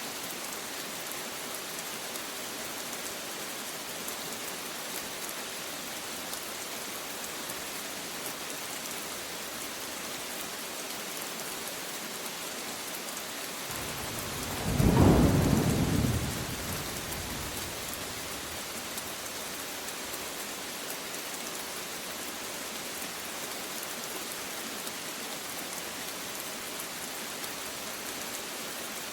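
Steady heavy rain falling, with a single clap of thunder about halfway through that builds quickly, peaks as the loudest sound and rumbles away over a few seconds.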